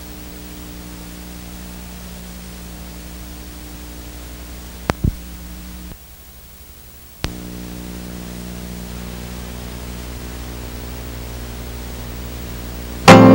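Steady electrical hum and hiss from blank, static-filled videotape. About five seconds in there are two sharp clicks. The hum drops out for about a second near the middle and returns with a click, and a loud burst of sound cuts in at the very end.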